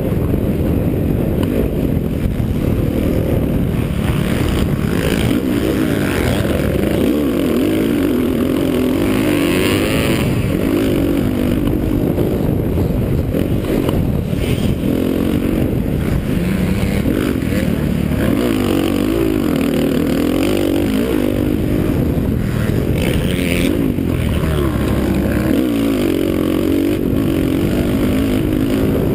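Dirt bike engine heard from a helmet camera while riding at speed, its pitch rising and falling repeatedly as the throttle is worked, with wind rushing over the microphone.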